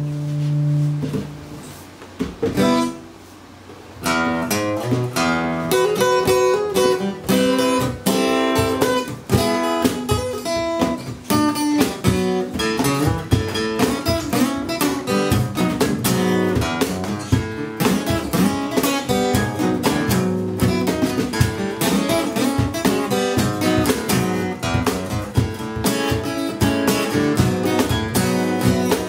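Instrumental passage on an acoustic guitar with a cajon. A held chord fades in the first second and the playing goes quiet for a few seconds. At about four seconds steady guitar strumming resumes, with sharp hand strokes on the cajon, and carries on.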